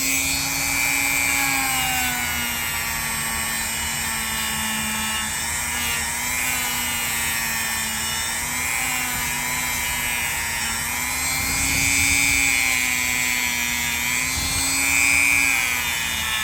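Small electric power tool running a fresh buffing pad with rubbing compound, polishing the nickel-silver bolsters of a pocket knife. The motor whines steadily, its pitch wavering slightly as the pad bears on the metal.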